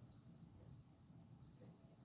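Near silence: a faint low outdoor rumble, with two faint short high chirps.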